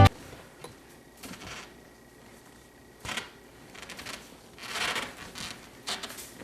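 Music cuts off suddenly, followed by a few faint scattered rustling and handling noises in a quiet small room.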